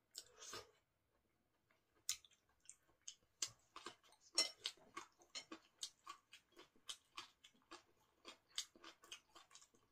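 Faint chewing of soft bread, with small wet mouth clicks and smacks. After a near-quiet start, they come in a quick, irregular run from about two seconds in.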